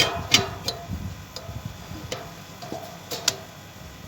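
Metal parts of a satellite dish kit clinking and knocking as they are handled and set in place: about five sharp, irregular knocks, some ringing briefly.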